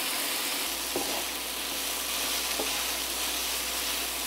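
Chicken pieces sizzling in oil in a nonstick frying pan as a wooden spatula stirs them, with a couple of light knocks of the spatula against the pan.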